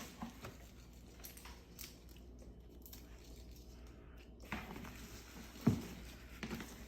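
Small hand pruning shears snipping dead leaves off a plant, with faint rustling of foliage and a few light clicks, and one sharper knock about five and a half seconds in.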